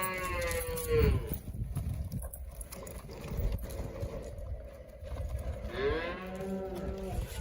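Cattle mooing: one call that trails off about a second in, and a second moo near the end.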